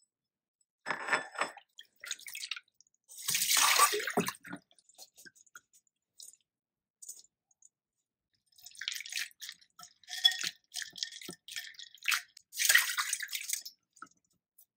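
Water splashing and dripping in a stainless-steel bowl as chopped green onions, shiso leaves and myoga ginger are rinsed, then lifted and squeezed in a mesh strainer. The sound comes in a few short bursts with quiet gaps, the busiest stretch in the second half.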